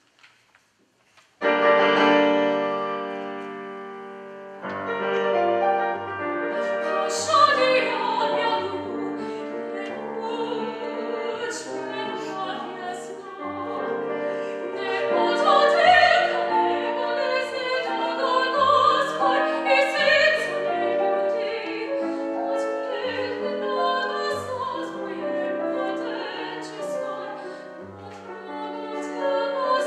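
Classical song for voice and grand piano. After a second or so of near silence, the piano strikes a chord that rings and fades. Then a woman's operatic singing joins the piano accompaniment.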